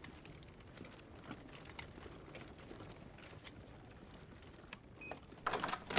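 Faint footsteps along a corridor. About five seconds in, an electronic key-card door lock gives a short beep as a card is held to its reader, followed by a brief, louder rattle of the lock or handle.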